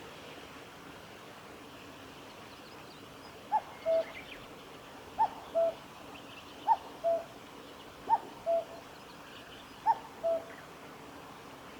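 Common cuckoo singing its two-note "cuck-oo" call five times, a higher short note falling to a lower, longer one, repeated every second and a half or so from about three and a half seconds in. Other small birds chirp faintly in the background.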